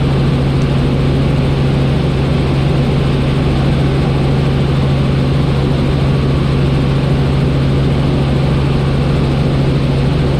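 Training helicopter in cruise flight heard inside the cabin: a steady, loud drone of engine and rotors with a strong low hum.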